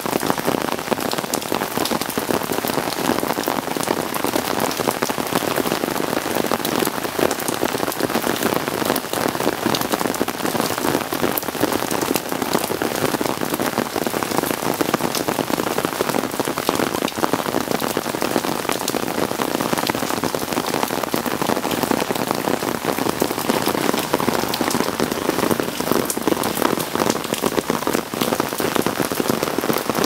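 Steady rain falling on dense garden foliage and drumming on an umbrella held overhead: a dense, even spatter of drops that does not let up.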